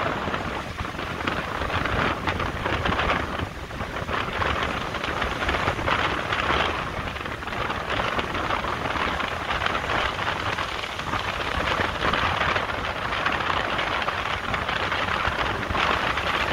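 Strong wind rushing over the microphone, mixed with small breaking waves washing onto the sand beach, in a steady noise that swells and eases every few seconds.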